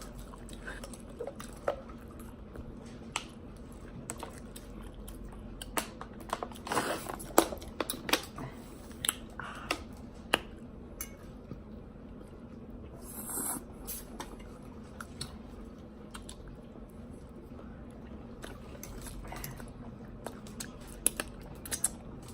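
Close-up eating sounds of a hibachi dinner: chewing and biting, with scattered sharp clicks and taps of utensils and dishes, busiest about six to ten seconds in.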